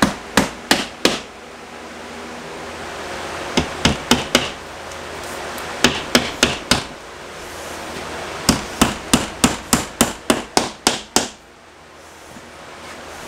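Hammer driving nails through a drywall sheet into the wall studs: quick groups of sharp blows, three to five at a time, then a longer run of about ten blows near the end.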